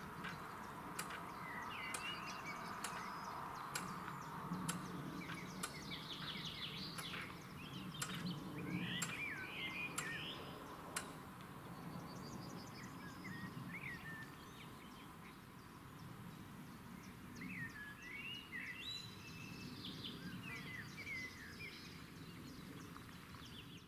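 Outdoor ambience of birds singing, with short, quick-pitched chirps and trills and a few sharp clicks in the first half over a faint steady background hiss.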